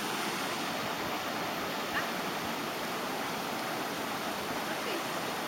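Steady rush of a river pouring over a small weir, an even hiss of water with no change.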